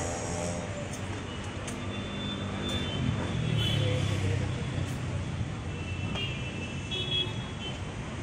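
Street traffic noise: a steady rumble of passing vehicles, swelling as one goes by about three seconds in, with faint voices.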